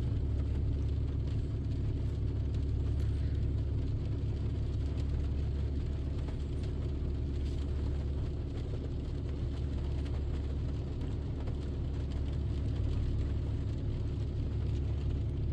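Dodge Ram pickup's engine idling steadily, an even low hum.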